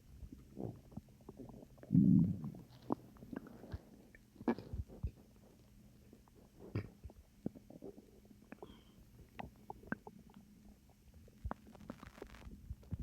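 Human stomach growling and gurgling: one louder low rumble about two seconds in, then scattered small pops and soft gurgles. The uploader guesses it comes from swallowed air.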